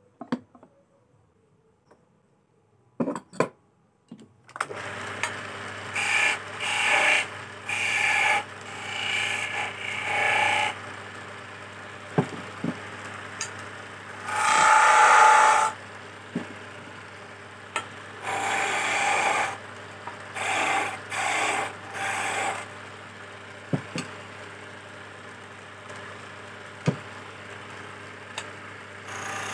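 A few clicks, then after about four and a half seconds an electric wood lathe starts and runs with a steady hum. Over the hum, a hand-held chisel cuts a spinning teak chess piece in a run of short scraping passes, the longest and loudest about halfway through.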